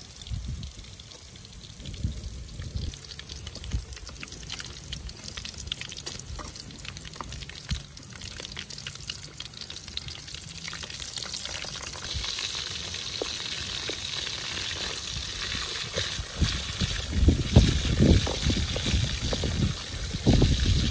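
Slices of pork belly sizzling in oil in a metal wok, a hiss that sets in about halfway and grows louder, while a wooden spatula turns them. Near the end come heavy low thumps and rumbles. The first part holds only faint light clicks.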